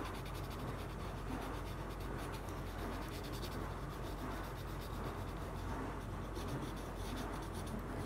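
Green watercolor pencil scratching across watercolor paper in many quick, repeated strokes.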